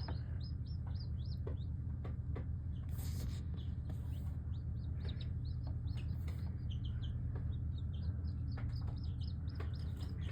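Young chickens peeping constantly, many short high chirps a second from several birds at once, over a steady low hum.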